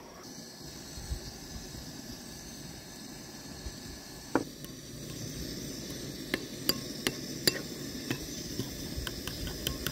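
Metal spoon stirring ground sumac with liquid into a paste in a ceramic bowl. It clinks sharply against the bowl once about halfway through, then several times in the second half.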